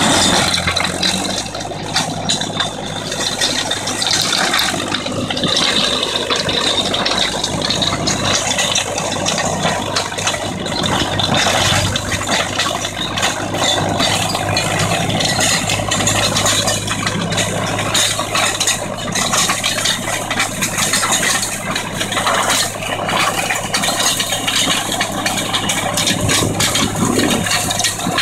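Fiat 466 DT tractor's diesel engine running steadily under load while its Sicma flail mulcher shreds dry grass, the flails and thrown debris making a dense, continuous rattle and clatter over a low engine note.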